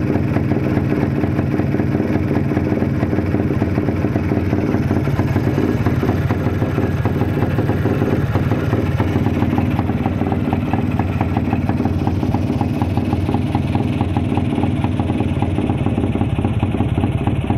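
Yezdi CL motorcycle's two-stroke single-cylinder engine running steadily.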